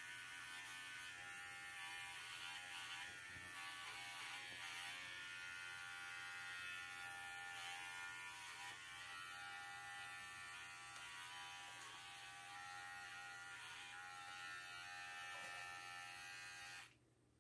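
Cordless pet hair clipper buzzing steadily as it trims a standard poodle's leg bracelet, then switched off suddenly near the end.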